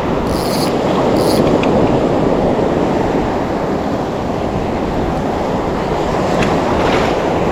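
Steady noise of surf washing close by, with wind on the microphone, and two brief hisses about half a second and a second in.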